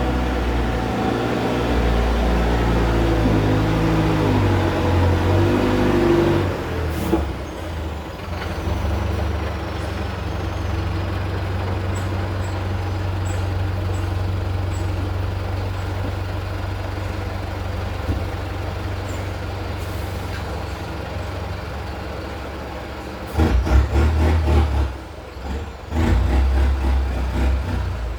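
Mercedes-Benz 1718 dump truck's turbo diesel engine with a straight exhaust pipe. It revs unevenly for the first six seconds, then runs at a steady low idle after a brief click about seven seconds in. It surges loudly again in short bursts near the end.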